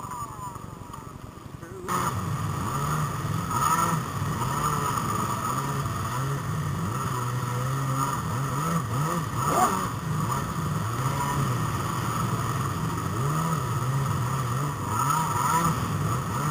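Wind and water rushing past a camera skimming over choppy sea during kiteboarding, with a low droning hum that wavers up and down in pitch. It is quieter for about the first two seconds, then louder.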